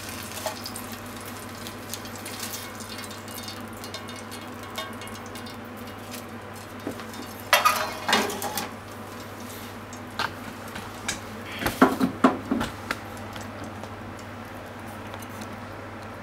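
Utensil clinking and scraping against a frying pan and a ceramic bowl as pan-fried chicken pieces are moved into the bowl, in two bursts about halfway through and about three-quarters through, over a steady low hum and hiss.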